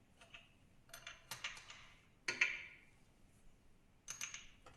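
A few short metallic clicks and clinks, in four brief clusters with the loudest about halfway through: steel clamps and screws being set onto a separator bowl.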